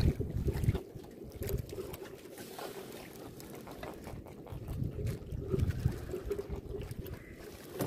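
Wet monofilament gill net being hauled and picked aboard a wooden outrigger boat, water trickling and dripping off the mesh with light rustles. Underneath runs a steady engine hum, and low gusts buffet the microphone now and then.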